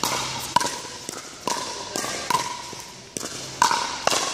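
Pickleball rally: a hollow plastic ball struck back and forth with paddles and bouncing on the court, a sharp pock every half second to a second, echoing in a large indoor hall.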